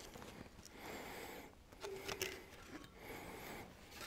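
Faint handling of a metal-faced cylinder head gasket being lifted off the block's studs: a few light clicks and scrapes about two seconds in. A man breathes slowly, in soft swells about every two seconds.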